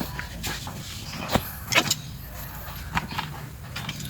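Hard plastic and metal parts of a seatbelt retractor being handled and opened up: scattered clicks and knocks, with a sharp clack about a second and a half in and a couple more just after.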